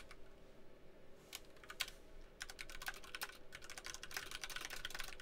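Faint typing on a computer keyboard: a few scattered keystrokes about a second in, then a quick, dense run of keystrokes from about halfway through.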